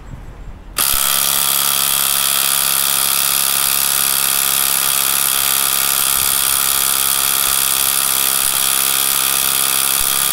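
Bosch GDX18V-EC cordless brushless impact wrench hammering continuously on a car wheel bolt torqued to about 195 newton metres, just above the tool's rated 186. It starts about a second in and keeps hammering steadily for about ten seconds: the long effort of loosening a bolt right at the tool's peak torque.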